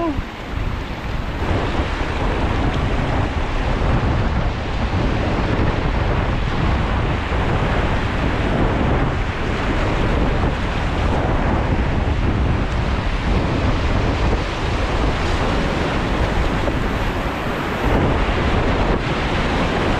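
Loud, steady rush of river water with wind buffeting the microphone.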